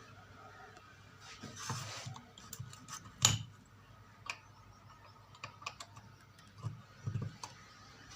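Scattered clicks, knocks and rustling from handling an electric iron's cord and plug while it is plugged into the supply, with one sharp click about three seconds in.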